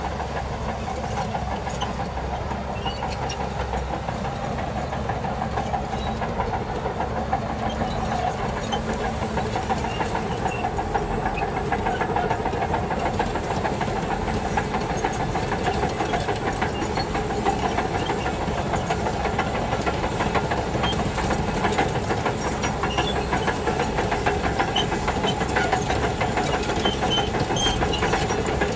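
Shantui DH17C2 crawler bulldozer working: its diesel engine running steadily under load, with a constant rapid clatter from the tracks. It grows a little louder from about halfway through.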